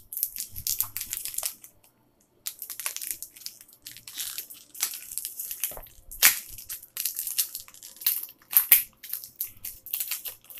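Wrapper of a Pokémon card booster pack crinkling and tearing as it is opened by hand: a run of irregular sharp crackles, with a short pause about two seconds in.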